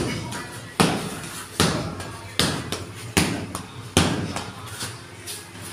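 Fists hitting a hanging heavy punching bag: six thuds about one every 0.8 seconds, each with a short fading tail, then a quieter stretch near the end.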